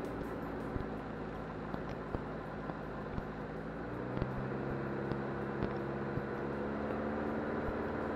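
Diamond DA40 Diamond Star's piston engine and propeller droning steadily inside the cockpit on final approach, with a few faint clicks. The tone firms up and shifts slightly about four seconds in, as the power is adjusted.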